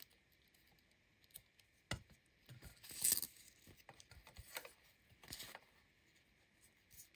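Small scissors snipping loose threads off a sewn fabric strap: a few short, sharp snips at uneven intervals, the loudest about three seconds in.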